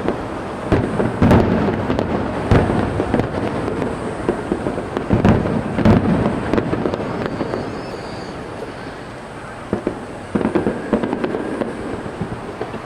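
Aerial fireworks shells bursting, a run of sharp bangs and crackles with echoing booms, thinning to a lull and then a few more bangs near the end.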